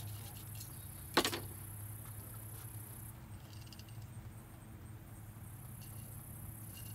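Fillet knife working through a bass on a table, with one sharp clack about a second in as a knife is laid down on the tabletop. Behind it run a steady low hum and a high insect trill that stops around three seconds in and returns a second or so later.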